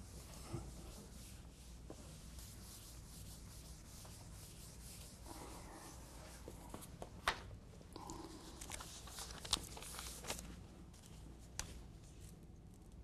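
A whiteboard eraser rubbing across a whiteboard, faint, with a few sharp clicks from about halfway through.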